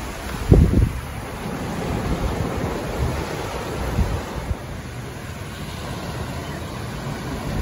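Ocean waves washing onto a sandy beach in a steady hiss of surf, with wind buffeting the microphone in low gusts, the strongest about half a second in and another around four seconds in.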